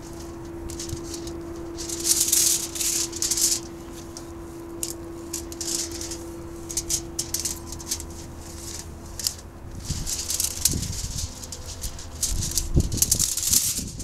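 Crinkling and rustling of the interleafing as it is peeled off a roll of ZIF corrosion-inhibitor tape and the tape is stretched around a steel pipe. The rustling comes in bursts, loudest about two seconds in and again near the end.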